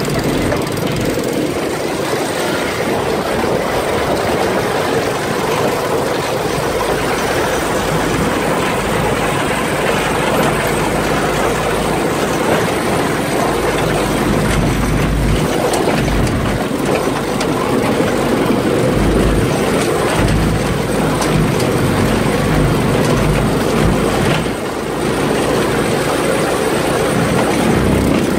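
Off-road buggy engine running under the loud, steady noise of the buggy driving over a rough dirt track, with uneven low thuds throughout.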